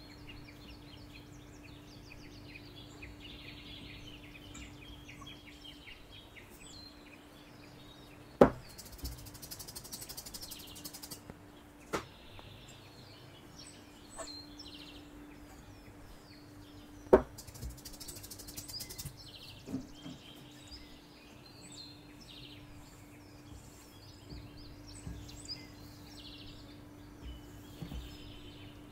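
Birds chirping over a faint steady hum, broken by four or five sharp knocks, the two loudest about a third of the way in and a little past halfway.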